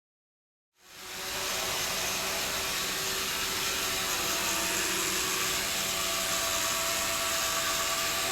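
Small quadcopter's motors and propellers running with a steady whine in flight, starting abruptly about a second in after silence.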